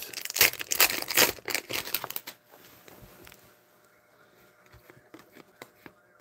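Foil wrapper of a hockey card pack crinkling as it is handled and opened, for about two seconds, then a few faint ticks as the cards are handled.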